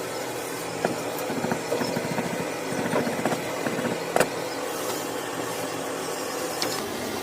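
A small machine running steadily, with a fast light rattle through the first few seconds and a sharp click a little after four seconds in.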